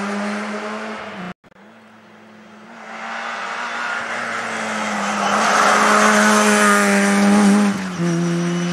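Rally car engines at high revs. The first car's note stops abruptly a little over a second in. After a short quiet gap a second car approaches, its engine note growing steadily louder to a peak, with a brief break in the note near the end.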